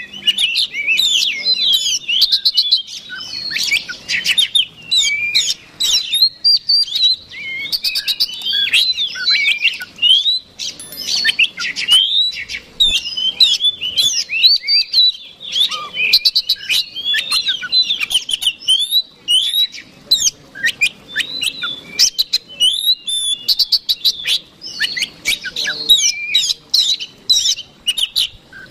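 Oriental magpie-robin (kacer) singing nonstop: a fast, unbroken string of varied whistles and chirps with rapid ticking rattles. This is the aggressive fighting-mood song that is used to provoke other magpie-robins.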